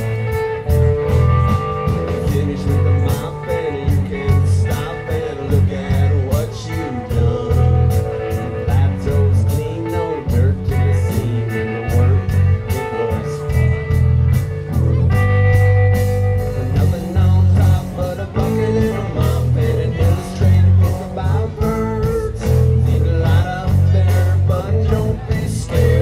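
Live rock band playing: a drum kit with cymbals keeping a steady beat, electric bass, electric guitar and a sung lead vocal.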